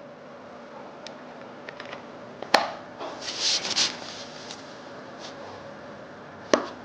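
Small hard objects being handled on a repair bench: two sharp clicks, one about two and a half seconds in and one near the end, with a brief scratchy rustle between them, over a faint steady hum.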